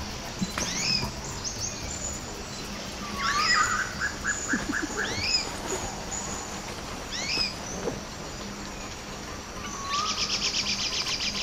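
Rainforest birds calling: sharp whistled notes sliding downward, repeated every two seconds or so, a quick run of short notes about three seconds in, and a fast trill near the end.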